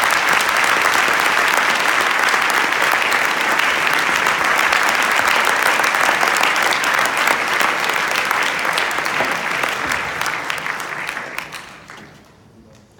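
Audience applauding, many hands clapping in a steady wash that fades out about a second before the end.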